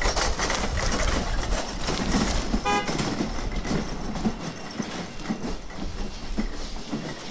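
Loud rumbling and clattering vehicle or heavy-machinery noise, with one short horn toot about two and a half seconds in.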